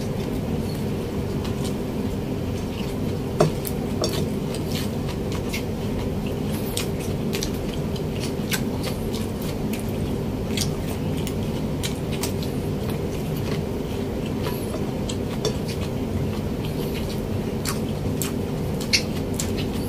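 A man chewing pork adobo with his mouth open to the mic, with many small wet mouth clicks and smacks, over a steady low hum. Two louder clicks stand out, a few seconds in and near the end.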